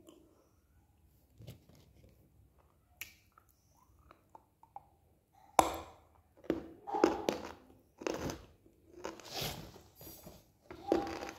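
Close-up chewing of dry, chalky clay: faint mouth clicks at first, then from about halfway a string of loud, irregular crunches as the hard pieces are bitten and ground.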